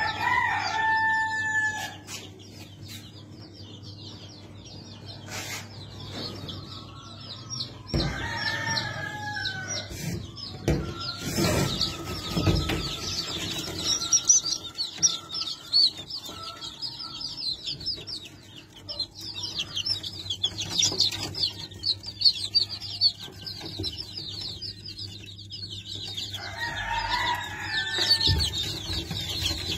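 A brood of young chicks peeping nonstop, many high, rapid cheeps overlapping. Three times a louder, lower drawn-out call stands out, and a few knocks sound in the middle.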